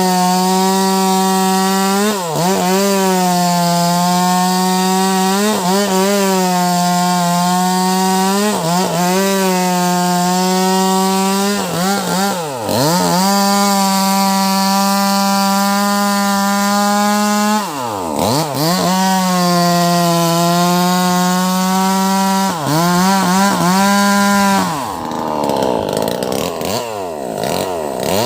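Wagner 580 two-stroke chainsaw running at full throttle, cutting into a large log. The engine speed dips sharply and recovers every few seconds, and near the end it runs lower and rougher.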